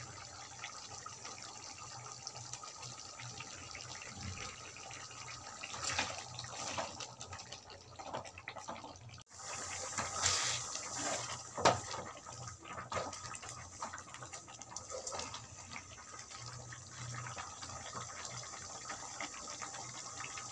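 Thick chicken gravy bubbling as it simmers in a metal pot, with a spoon knocking and scraping against the pot several times, loudest about twelve seconds in.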